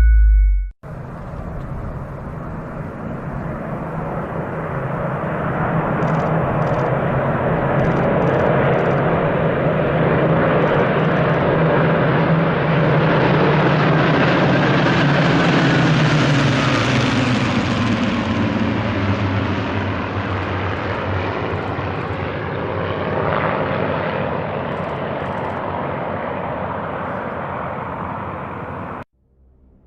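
Aircraft flying over: engine noise builds, peaks about halfway, then fades, its pitch falling as it passes. The sound cuts off suddenly near the end.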